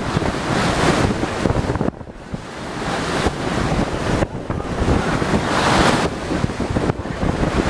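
Wind buffeting the microphone in uneven gusts on open water. It drops away about two seconds in and swells again near six seconds.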